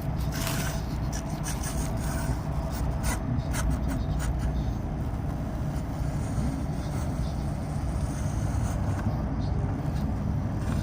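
Axial SCX24 1/24-scale RC crawler working over a course: tires and chassis scrape and click against the obstacles, most busily in the first few seconds, over a steady low rumble.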